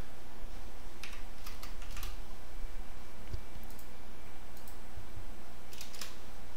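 Computer mouse clicks and keyboard key presses, scattered and sharp, some in quick pairs, over a steady low background hum.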